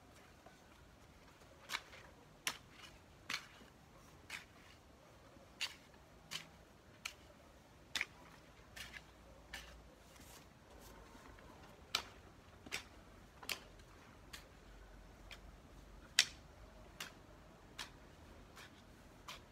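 A garden hoe chopping into soil: short, sharp knocks of the blade, irregular, about one a second.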